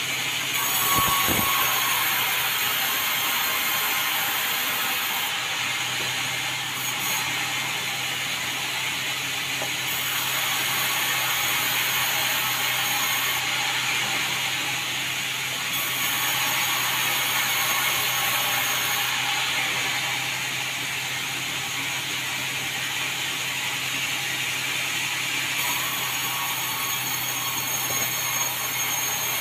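A sawmill running and sawing red meranti timber into boards. A steady machine hum sits under the noise of the cut, and a high hiss comes and goes every few seconds.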